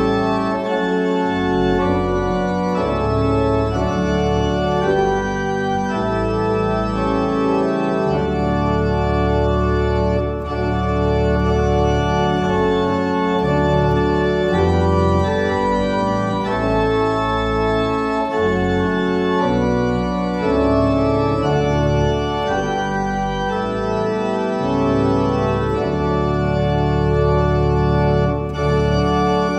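Organ music of sustained, held chords that change every second or two, playing steadily with two brief dips in level, about ten seconds in and near the end.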